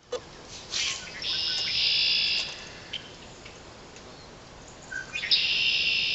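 A songbird singing twice: each time a short note followed by a longer, high-pitched phrase lasting a second or more, the second song starting about five seconds in.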